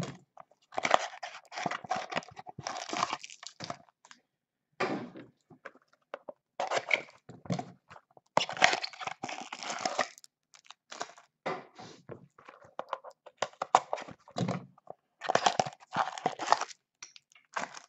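A trading-card pack's wrapper and packaging being torn, crinkled and handled. It comes in irregular bursts of rustling and crackling with short pauses between them.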